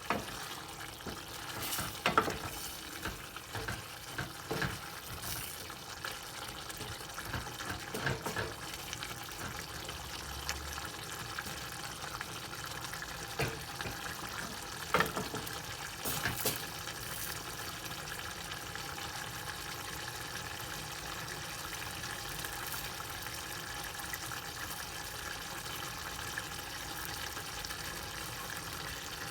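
Kitchen sounds while lamb tripe is prepared: a steady hiss of liquid, from either sizzling or running water, with scattered clinks and knocks of a utensil against a pot in the first half, then only the steady hiss.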